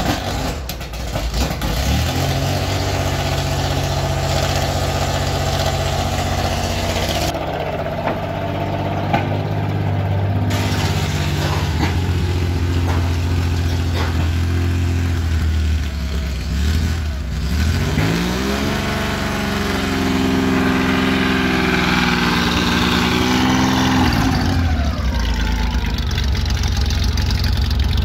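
Classic air-cooled Porsche 911 flat-six running at a steady idle; about two-thirds of the way through the revs rise, hold higher for several seconds, then drop back to idle.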